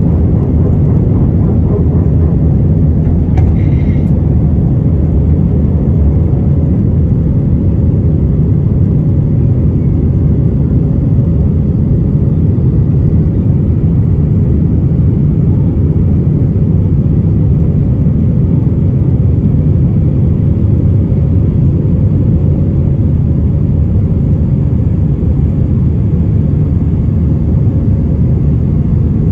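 Airbus A320-200 cabin noise from a seat over the wing while climbing after takeoff: the engines and airflow make a loud, steady, low rumble with a faint even hum. A short faint high tone sounds about three seconds in.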